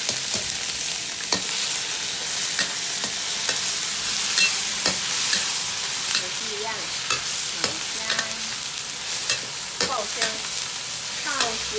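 Shiitake mushrooms sizzling in hot oil in a wok as they are stir-fried. Sharp clacks and scrapes come every second or so as a spatula turns them against the pan.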